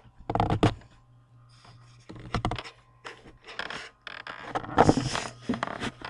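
Camera handling noise: irregular scraping and rubbing bursts as the camera is carried and swung about, the loudest about five seconds in, over a steady low hum.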